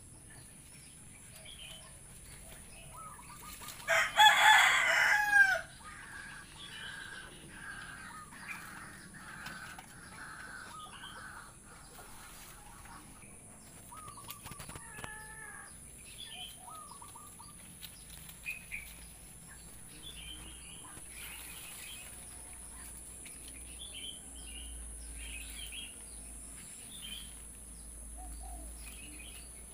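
A rooster crows loudly once, about four seconds in, among scattered chirps of small birds. A steady high-pitched whine runs underneath.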